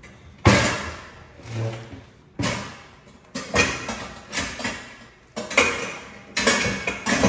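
Metal cooking pots clanking and clattering as they are moved about: a string of separate knocks, roughly one a second, each dying away quickly.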